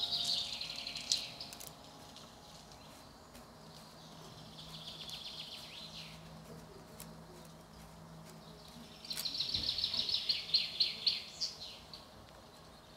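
Birds singing: three bouts of rapid, high trilling, a faint one in the middle and the loudest near the end.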